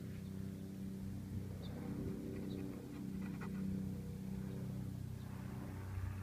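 A steady low hum, like a motor running, with faint scattered ticks a couple of seconds in and a soft rustle near the end.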